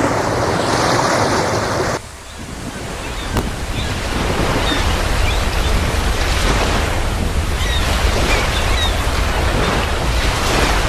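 Sea waves washing, with wind buffeting the microphone as a steady low rumble. The sound drops suddenly about two seconds in and builds back up over the next couple of seconds.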